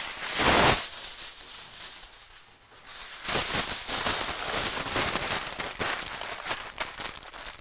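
Heavy-duty aluminium foil handled by hand: a loud rip in the first second as a sheet comes off the roll, then from about three seconds in a continuous crinkling and crackling as the foil is folded and pressed around a packet.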